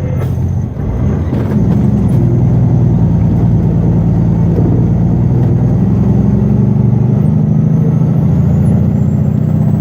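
Heavy diesel engine of a Western Star logging truck running under way, heard from inside the cab. It eases off briefly about a second in, then settles into a steady drone.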